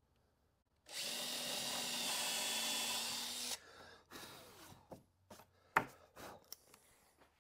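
Handheld power drill running at a steady speed for about two and a half seconds, then stopping, followed by a few light knocks and clicks.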